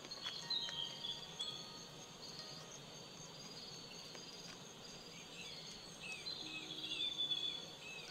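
Soft, scattered chime-like tones at many different pitches over a steady high insect-like trill, with a quick run of about five bird chirps a little past the middle.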